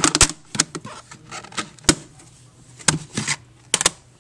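Plastic CD and DVD cases being handled, giving irregular sharp clicks and knocks as they are picked up and set against a wooden shelf, with rubbing between.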